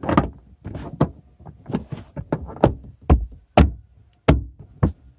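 Handling noise from the Lada Vesta's rear parcel shelf as it is worked onto the trim panel's hooks, then a run of sharp knocks about twice a second as the shelf is pressed and tapped down to seat it.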